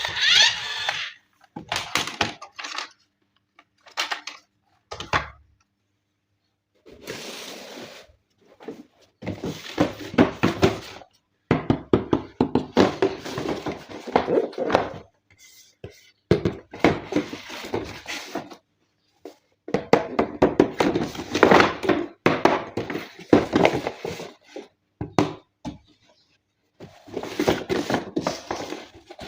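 Hands handling a toy and its packaging: irregular bursts of rustling and crackling with sharp clicks and light knocks, broken by short pauses.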